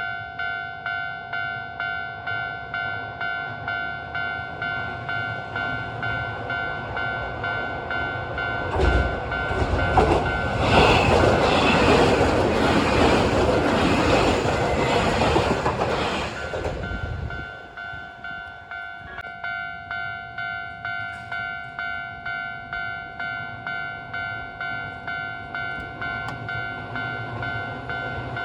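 Japanese level-crossing alarm ringing steadily at just under two strikes a second. About eight seconds in, a Keio 1000 series electric train passes over the crossing for about eight seconds, louder than the alarm, which keeps ringing after the train has gone.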